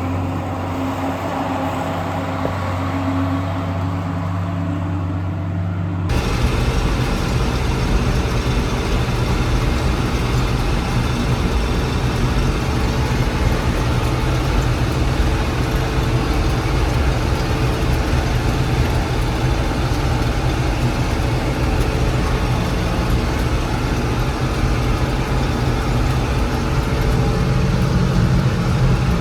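John Deere 6600 combine running steadily with a low engine hum; about six seconds in the sound switches abruptly to a louder, rougher noise with a strong low rumble that carries on steadily.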